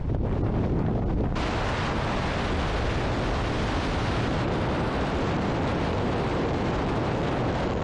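Steady, loud rushing of wind over the microphone, the airflow of a skydive in freefall. It grows fuller and brighter about a second and a half in.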